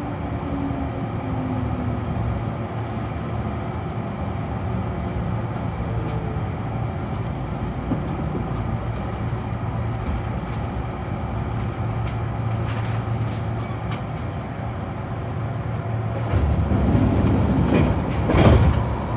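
Kintetsu 6020 series electric train running on the line, heard from behind the driver's cab: a steady rumble of motors and wheels on rail. A louder swell of noise builds near the end and peaks shortly before it falls back.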